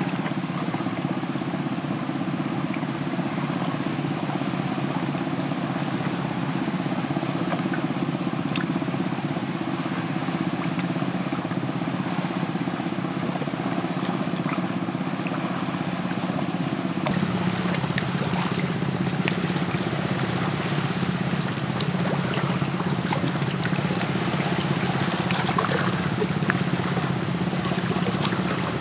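Liquid bubbling steadily in a cooking pot, with scattered small crackles and pops that become more frequent about two-thirds of the way in.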